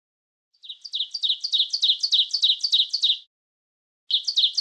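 A bird's rapid chirping song: a fast run of repeated high chirps, about five a second, that stops after nearly three seconds and starts again near the end.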